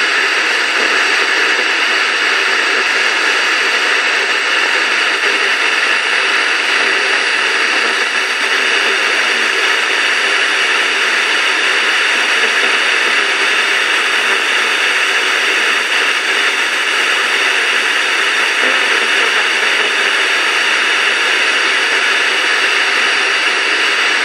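FM radio static: a steady hiss from a tuner on 91.8 MHz with no station audio coming through, the Sporadic-E signal lost in the noise.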